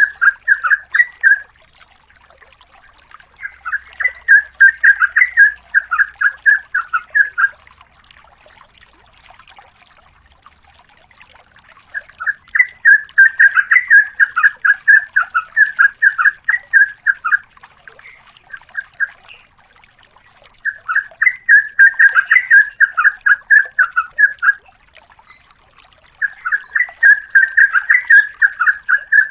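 Yellow-vented bulbul (trucukan) singing long runs of rapid, chattering notes. It sings in about five bouts of a few seconds each, separated by short pauses.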